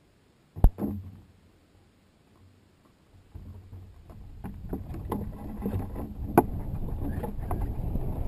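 A single sharp bang as the high-altitude balloon bursts above the payload. A couple of seconds later comes a rushing wind noise that grows louder, with scattered knocks and rattles, as the payload starts to fall and tumble.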